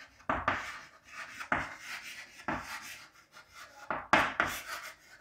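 Handwriting: a writing tool scratching across a surface in short, irregular strokes, some louder than others, with a quick cluster of strokes about four seconds in.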